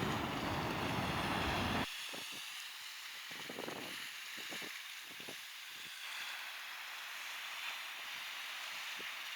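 Outdoor coastal ambience: a steady hiss of wind and sea, with wind buffeting the microphone, heaviest for about the first two seconds and then coming in scattered low gusts.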